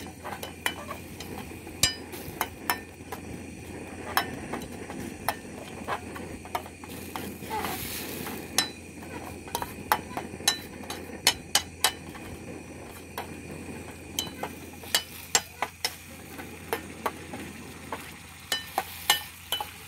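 Metal fork stirring and scraping in a small stainless steel frying pan, with many sharp irregular clinks against the pan, over a steady sizzle of chili paste frying on a portable butane gas stove.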